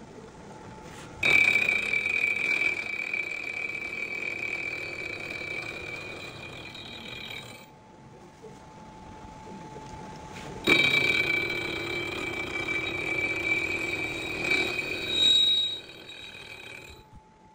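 Milling machine end mill cutting into a crankshaft counterweight to trim it, in two passes of about five to six seconds each with a high-pitched ringing squeal from the cut. A faint steady whine of the running spindle between the passes.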